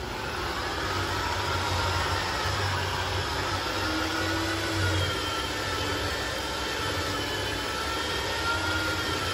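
Corded rotary polisher with a foam pad buffing a car's painted body panel with cutting compound: a steady motor whine that wavers slightly in pitch as the pad is worked over the panel.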